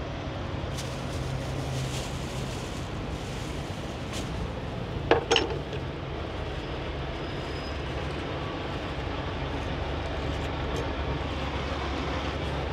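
Steady low rumble of idling diesel truck engines, with a brief sharp clatter about five seconds in.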